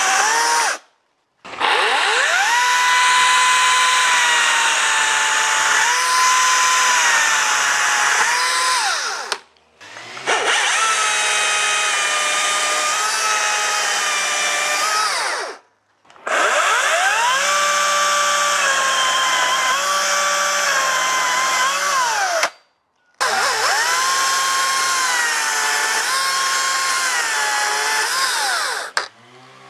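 Cordless electric chainsaws (a STIGA, a Stihl MSA 220 C and a Makita among them) cutting through softwood pine logs one after another, four cuts in all. Each motor's high whine climbs as the chain spins up and wavers in pitch as it cuts through the wood, with short silent breaks between cuts.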